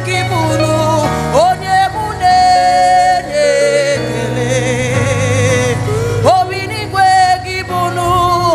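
Gospel worship song: a singing voice holds long notes, sliding up into them and wavering with vibrato, over steady instrumental backing.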